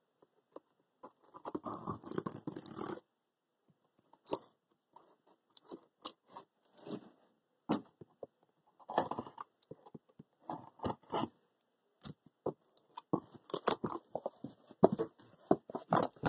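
Cardboard accessory box being cut open with a knife and its contents handled: scattered scrapes, crinkles and sharp clicks in short spurts, with brief pauses between them.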